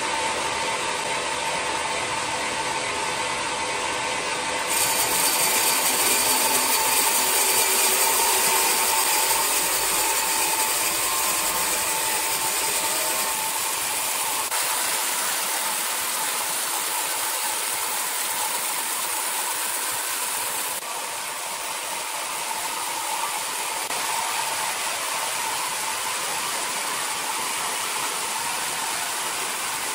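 Horizontal band sawmill blade cutting lengthwise through a large red hardwood log. It makes a steady hiss with a constant whine, grows louder and brighter about five seconds in, and eases off a little about two-thirds of the way through.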